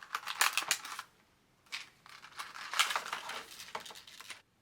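Crinkling and rustling of the plastic packaging around a Squirkies fidget toy as it is handled and unwrapped. There are two stretches of irregular crackling, with a brief pause after about a second.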